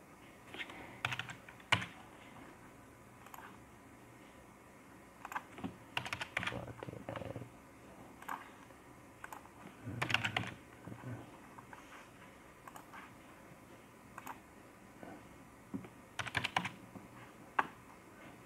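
Computer keyboard keystrokes and mouse clicks: scattered single clicks and short quick runs of typing as numbers are entered on the numeric keypad.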